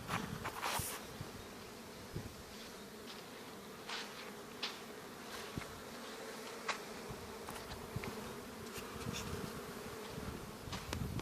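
Bees buzzing: a faint, steady hum, with a few faint short ticks scattered through it.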